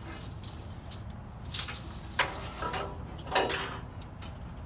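A few light metallic clinks and taps as a temperature-sensor wire and its metal probe are handled against the steel body of a pellet grill. The loudest, sharpest clink comes about a second and a half in, with two more near two and three and a half seconds.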